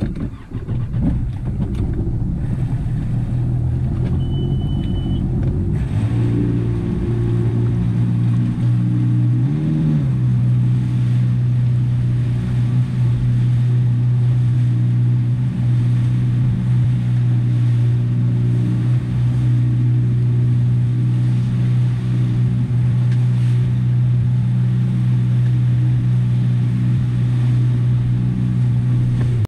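Boat engine running steadily under way, with wind and rushing water. The engine settles in from the start, and its pitch rises briefly about ten seconds in.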